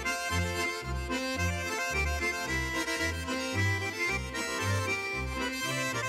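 Swiss Ländler trio playing a Schottisch: two Schwyzerörgeli (Swiss diatonic button accordions) carry the melody and chords over a plucked double bass sounding about two beats a second.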